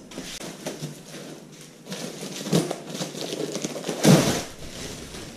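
Scattered rustles and light knocks of handling a roll of vinyl-coated poultry netting. A louder rustle comes about two and a half seconds in, and the loudest bump about four seconds in.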